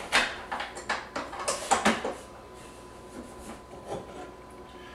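Rubbing and light clicking of plastic parts as something is pressed into the storage compartment of a VacMaster Pro 260 vacuum sealer's housing, busiest in the first two seconds, then a few soft knocks of handling.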